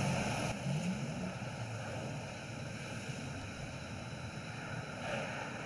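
Steady outdoor street and traffic noise, a continuous hum of passing and idling vehicles with no distinct event.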